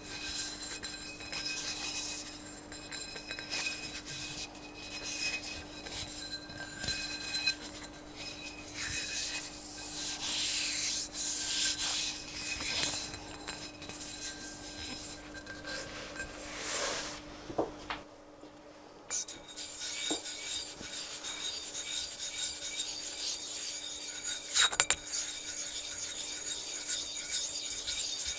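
Gritty rubbing and scraping on a whetstone, in uneven strokes. About two-thirds of the way through the texture changes abruptly to a steadier, hissier scraping, with one sharp click near the end.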